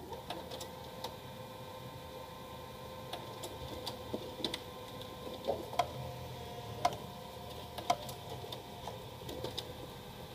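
HP LaserJet CP1025 colour laser printer running its internal drive motors: a steady mechanical whine with irregular clicks and ticks from its gears and mechanism.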